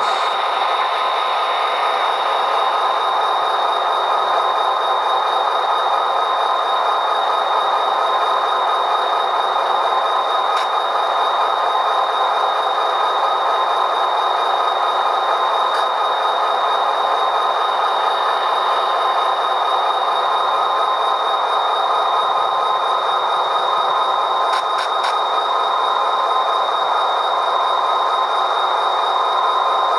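Sound decoder in an HO scale model EMD diesel locomotive playing a steady diesel engine sound through its small speaker, thin and without bass, with a faint high whine throughout.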